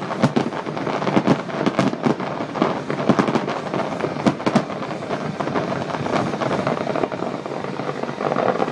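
Aerial fireworks display: rapid bangs and crackling from exploding shells, densest in the first few seconds and thinning out toward the end.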